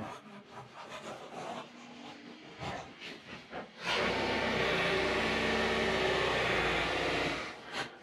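Knocks and handling rustle, then about four seconds in an electric welding arc strikes and crackles and hisses steadily for three to four seconds before cutting off. A weld bead is being laid to fix a steel support onto the backhoe's frame.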